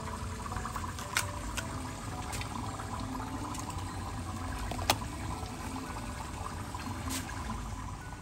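Water running steadily, with a few sharp clicks about a second in, near the middle (the loudest) and near the end.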